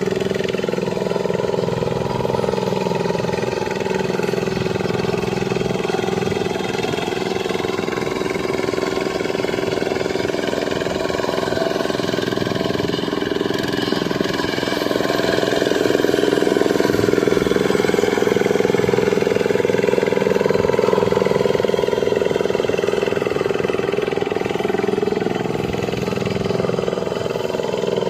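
Dongfeng single-cylinder diesel engine of a Quick Impala two-wheel hand tractor running steadily as it works a rice paddy. Its pitch rises slightly in the middle and eases back near the end.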